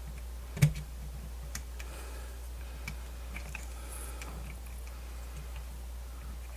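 Light handling noise of small plastic radio parts: one sharp click about half a second in, then scattered faint ticks and taps, over a steady low hum.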